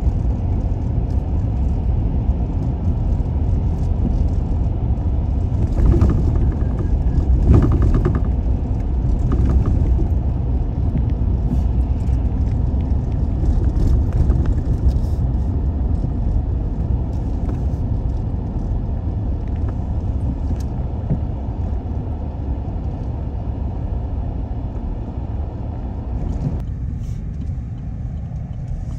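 Steady low rumble of a car driving, the road and engine noise of the moving car. A few short knocks come about six to eight seconds in, and the higher part of the noise drops away near the end.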